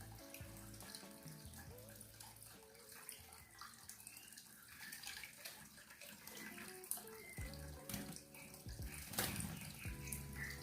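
Water splashing and running while a bird bathes, over quiet background music, with a few short high chirps.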